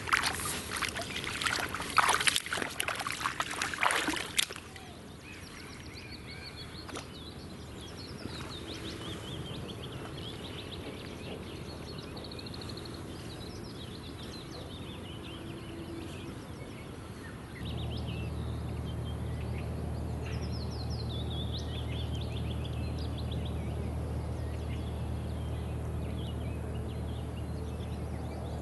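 Water splashing and sloshing for the first few seconds as legs in rubber waders move through shallow floodwater, then quieter birdsong with short high chirps. About two-thirds of the way in, a steady low hum sets in.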